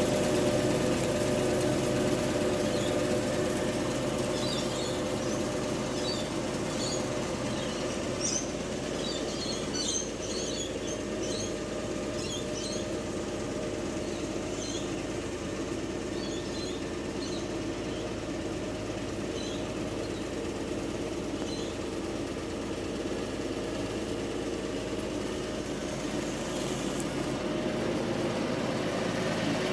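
A steady mechanical hum, like an engine running at idle, holding two steady tones throughout. Short high chirps come and go through the first two-thirds.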